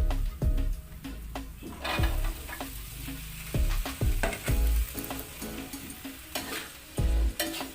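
Food sizzling in a hot pan while being stirred and scraped with a spatula; the sizzle grows stronger about two seconds in.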